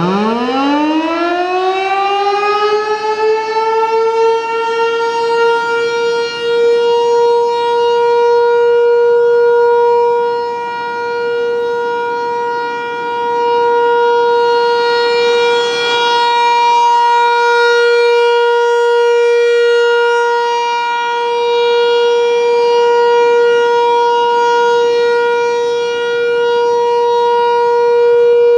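An American Signal T-128 rotating outdoor warning siren starts up. Its single tone winds up from a low growl to a steady high pitch within the first few seconds, then holds. The loudness swells and fades about every ten seconds as the siren head turns toward and away from the listener.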